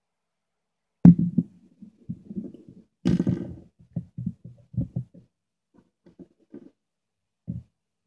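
Handling noise from hands working a multimeter and its battery-clip wires on a wooden table. It starts about a second in as irregular low thumps and rustles, with a sharp click at the start and a louder clatter about three seconds in.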